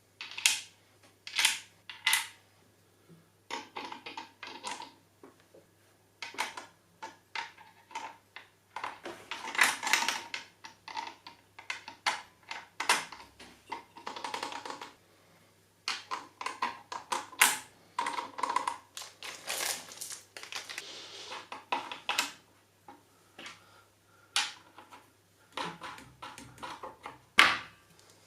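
Irregular clicks, taps and short rattles of hard computer parts being handled and fitted together during assembly.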